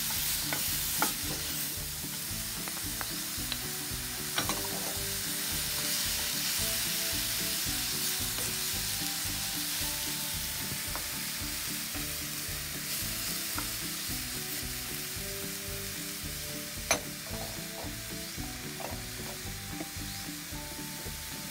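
Diced onion and tomato sizzling steadily in a frying pan while a wooden spatula stirs and scrapes them, with a few sharp knocks of the spatula against the pan.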